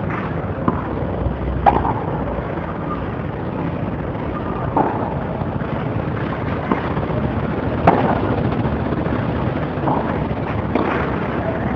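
Tennis rackets striking the ball during a doubles rally: several short, sharp pops a second or two apart over a steady rumble.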